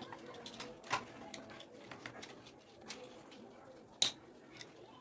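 Plastic toy track pieces being handled and fitted together: scattered light clicks, with two sharper snaps about a second in and near the end.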